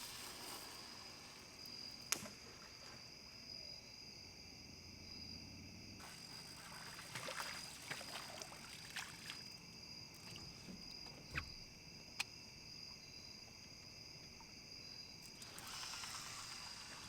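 Faint steady chorus of night insects, a continuous high trill. A stretch of rustling with a few sharp clicks comes through the middle.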